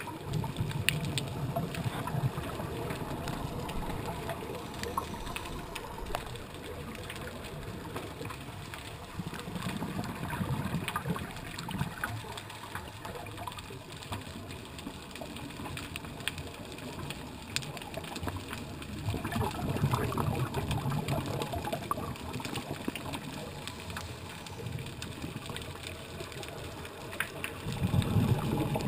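A scuba diver's exhaled regulator bubbles rumble and gurgle underwater in four surges, one every eight to ten seconds. Between them is a steady underwater hiss with scattered faint clicks.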